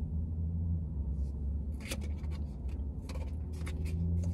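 Plastic fork clicking and scraping in a black plastic takeout tray as hash browns are scooped, a run of small sharp clicks starting about two seconds in, over a steady low car rumble.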